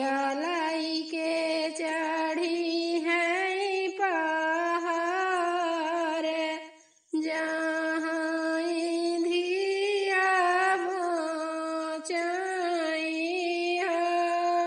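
A woman singing a Bagheli folk song solo, in long drawn-out phrases with wavering held notes. There is a short pause about halfway through before she starts again.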